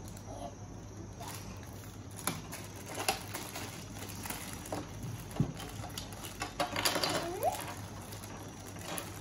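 Small plastic toy building blocks handled and pressed together by hand: scattered light clicks and taps, with rustling of plastic wrappers.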